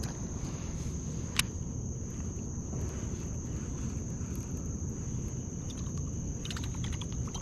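Steady high-pitched chirring of crickets under a low, even rumble of outdoor noise. One sharp click about a second and a half in, and a few fainter clicks near the end.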